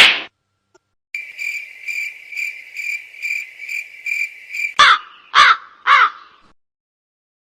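Cricket chirping sound effect: a steady run of high chirps, about two a second, for nearly four seconds, followed by a crow cawing three times. A short noise from the previous effect cuts off at the very start.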